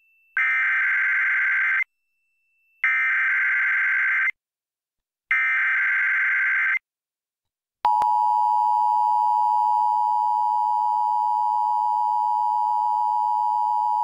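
Emergency Alert System header: three identical bursts of warbling digital data tones (SAME header), each about a second and a half long with a second of silence between them. About eight seconds in, the steady two-tone EAS attention signal starts and holds, announcing the alert, here a Required Monthly Test.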